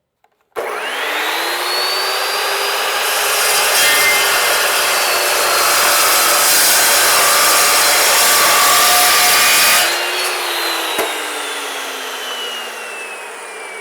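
Electric metal-cutting saw spinning up and cutting through rusted steel angle iron, a rasping cut over a steady motor whine for about nine seconds. Then the motor is switched off and the blade winds down, its whine falling slowly in pitch.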